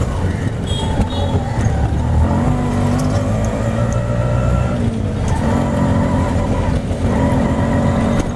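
Auto rickshaw engine running as it drives through traffic, heard from inside the passenger cabin, its steady rumble rising and falling a little with the throttle.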